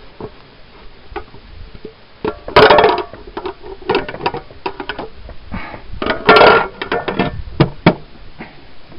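Steel air cleaner lid on a 1991 Pontiac Sunbird being handled and set back onto the air cleaner housing: a string of metallic clicks and knocks, with two loud clatters about two and a half and six seconds in.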